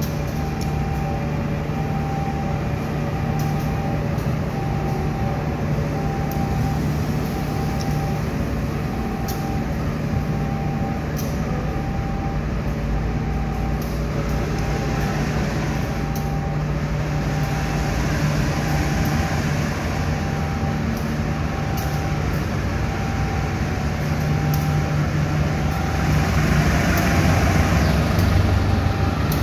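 Diesel-electric locomotive engine running as the train creeps into the station, growing louder near the end as it draws closer. A short beep repeats steadily over it.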